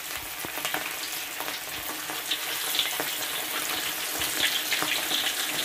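Tapioca-starch-coated mackerel frying in hot oil: a steady sizzle full of small crackles and pops, growing a little louder about two seconds in.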